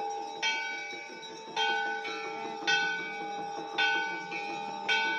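A large temple bell struck five times, about once a second. Each strike rings on, fading until the next one.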